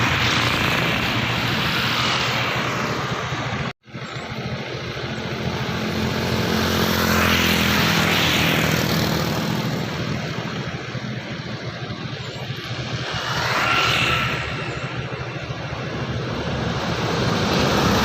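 Highway traffic: large vehicles passing at speed, their engine and tyre noise swelling and fading with each pass, loudest about 7 and 14 seconds in. The sound cuts out briefly just before 4 seconds in.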